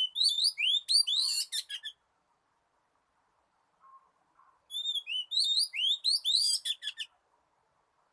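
Oriental magpie-robin singing two phrases of quick, rising whistled notes and sweeps, one at the start and another about five seconds in, with a pause between.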